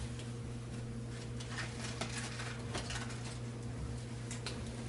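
A few faint, scattered clicks and light handling sounds over a steady low hum.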